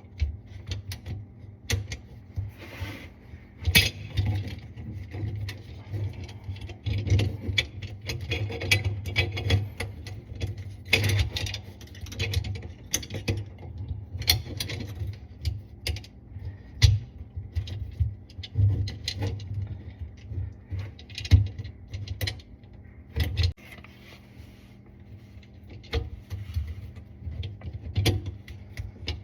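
Hand work on plumbing hardware: irregular metal clicks, knocks and ratchet-like clicking, with a steady low hum underneath.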